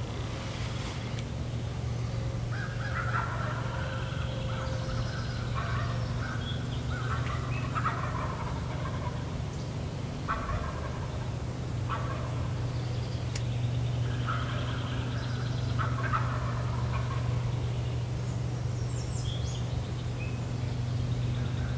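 Wild turkey gobbling repeatedly, a rattling gobble every few seconds.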